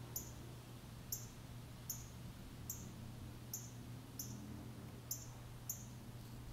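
Short, high-pitched chirps repeated evenly, about one every 0.8 seconds, typical of a small bird's call note, over a faint low steady hum.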